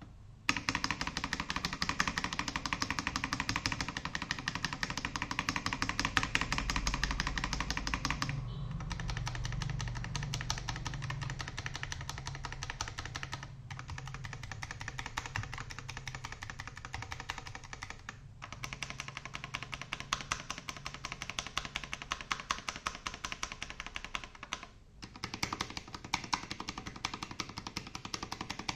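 Stabilized keys on a mechanical keyboard, an Akko Designer Studio kit with Akko CS Matcha Green switches and PBT Cherry-profile keycaps, pressed rapidly over and over to test the stabilizers' sound. The clacking comes in four or five stretches with brief pauses between them, and one stretch has a deeper thock.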